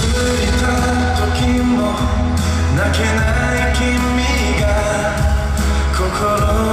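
K-pop song with singing over a backing track with a heavy, sustained deep bass.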